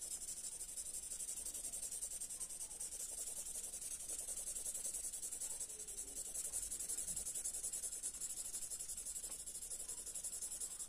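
Thick red felt-tip marker scratching on paper in rapid, even back-and-forth strokes while filling in a stripe of colour.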